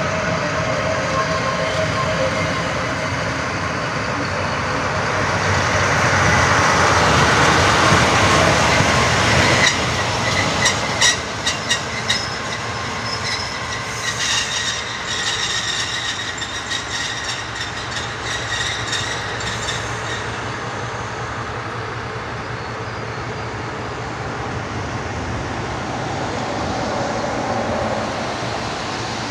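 An SM42 diesel shunting locomotive and its passenger coaches rolling slowly past, with the diesel engine running as the locomotive draws near. The loudest part comes about a quarter of the way in. A run of sharp clicks follows as the wheels cross rail joints, then the train moves away and the sound levels off.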